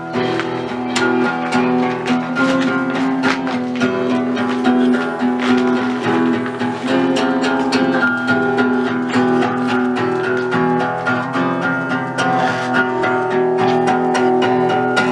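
Instrumental music led by guitar, strummed and picked, with a steady run of held notes.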